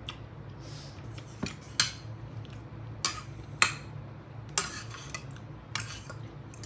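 Metal spoon and fork clinking and scraping against a bowl of noodles: a series of sharp, irregularly spaced clinks.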